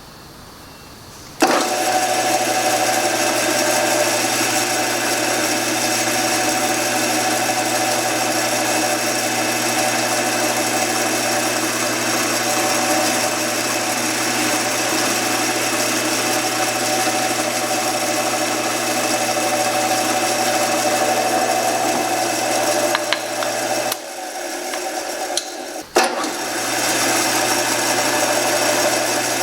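An electric power tool's motor running steadily with a constant hum. It cuts in abruptly a second or so in, drops away for a couple of seconds near the end with a sharp click, then runs on again.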